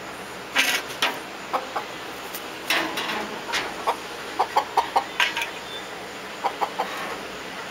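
Chickens clucking: short, sharp clucks in scattered bunches, with a quick run of them about halfway through and three more near the end.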